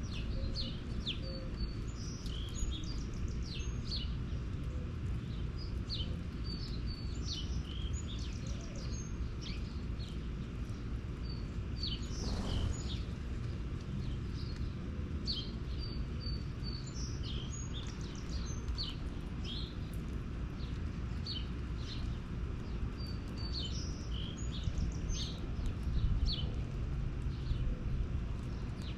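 Small birds chirping again and again, short high sharp calls scattered throughout, over a steady low outdoor rumble.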